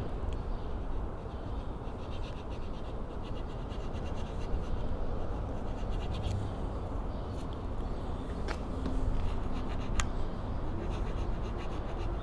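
Round metal file rasping over a bicycle rim-brake pad in repeated scraping strokes, scuffing up the old, hardened pad surface. Two sharp clicks sound in the second half.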